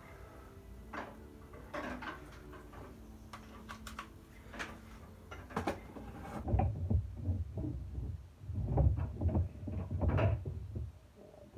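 Clicks and knocks of things being picked up and set down, then from about six seconds in a run of loud, dull bumps and rubbing close to the microphone.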